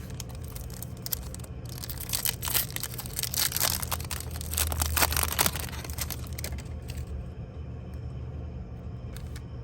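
Foil trading-card booster pack wrappers crinkling and being torn open, a dense crackle that dies away about seven seconds in.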